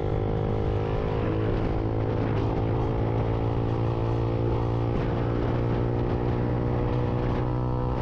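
Lexmoto Viper 125's single-cylinder engine running at a steady cruising speed as the motorcycle is ridden, heard from the rider's position over a steady rush of wind and road noise.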